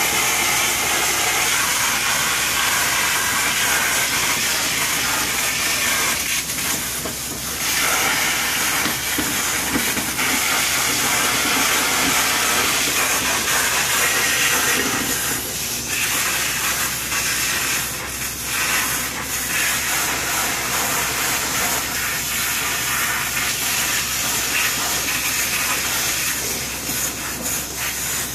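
Hard-surface cleaning wand working a tile floor, with a steady hiss of pressurised water spray and vacuum suction. It dips briefly a few times.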